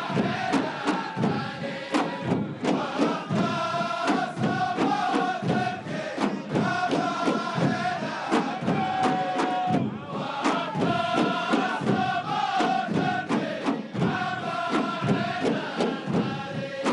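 Saudi ardah war dance: a massed chorus of men chanting a Nabati poem in unison over a steady, even drumbeat.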